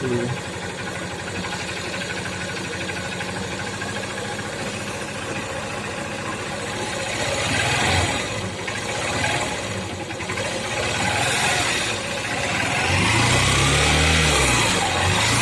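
Honda Shine SP's 125 cc single-cylinder engine idling steadily, then blipped a few times from about eight seconds in and revved up and down repeatedly near the end. It sounds normal, with none of the 'kat kat' timing-chain rattle on throttle: the new timing chain has cured it.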